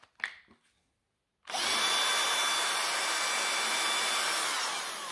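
Bosch GSR10.8V-LI 10.8 V cordless screwdriver's motor and gearbox running free at speed on its rebuilt lithium battery pack. It starts after a couple of small clicks about one and a half seconds in and runs steadily, then falls in pitch as it slows near the end and picks up again.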